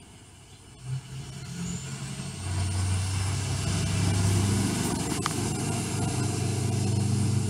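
Adult cat purring close to the microphone, a steady low rumble that swells over the first three seconds, with a single sharp click a little past the middle.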